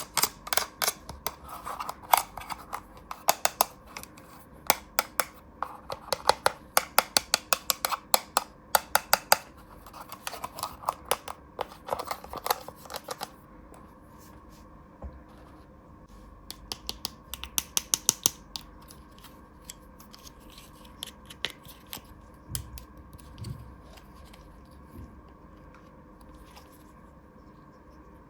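Toy packaging being handled and opened by hand, with rapid runs of crisp clicks and snips for about the first half, then sparser, softer clicks.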